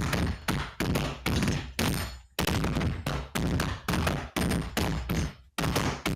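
Rapid gunfire, about three to four shots a second, each shot fading in a short ringing tail, with brief pauses between some strings of shots.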